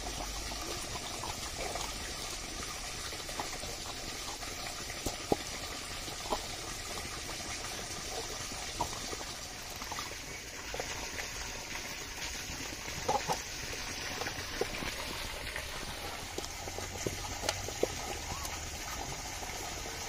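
Hands squishing a wet spice marinade in a steel plate and rubbing it over raw quail, with scattered light clicks and taps, over a steady background rush.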